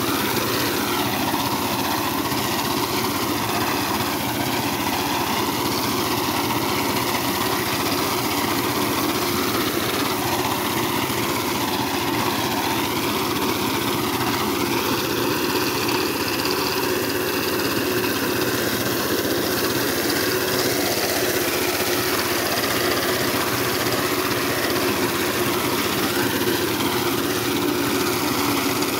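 Small engine of a walk-behind power reaper running steadily under load as the machine cuts standing wheat.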